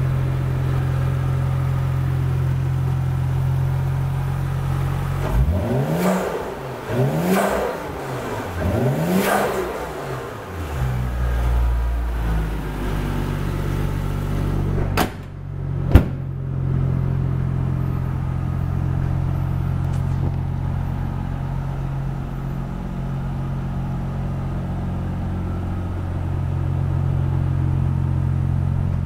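Toyota Soarer's 1JZ-GTE 2.5-litre twin-turbo inline-six idling steadily, blipped three times in quick succession between about five and ten seconds in, each rev rising and falling quickly. A sharp bang about sixteen seconds in, just after a click, is the loudest sound.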